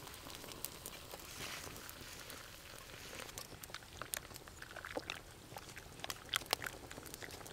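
Twigs crackling and popping in a small wood-burning camp stove, with scattered sharp clicks. Hot water is poured into an enamel mug, and a spoon stirs it with light clinks.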